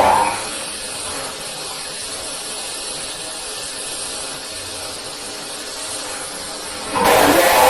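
A steady hiss of background noise with no clear tones. About seven seconds in it is cut off by a sudden loud burst, taken to be the angry yelling this recording is made of.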